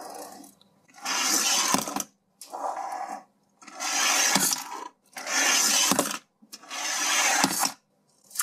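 Small plastic pull-back toy car's gear motor whirring in five bursts of about a second each, as it is wound back on the table and let go to run.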